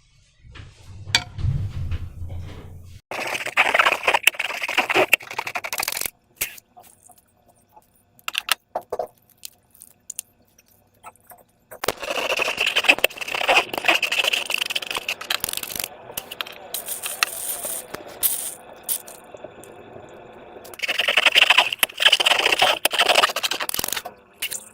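Slime being squished and stretched by hand, making bursts of sticky crackling and clicking. There are three main stretches of it, with short pauses in between.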